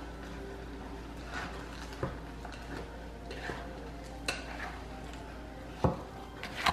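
Wooden spoon stirring thick chocolate chip cookie dough in a glass mixing bowl: soft scraping with a few knocks of the spoon against the bowl, the loudest near the end.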